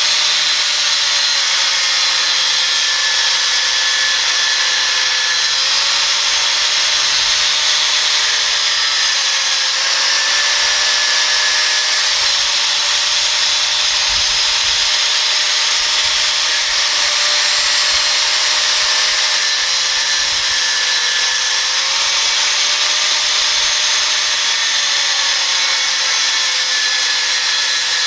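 Angle grinder fitted with a Graff Black diamond cut-off wheel, cutting metal: a loud, steady grinding with a motor tone that dips and recovers as the wheel is loaded.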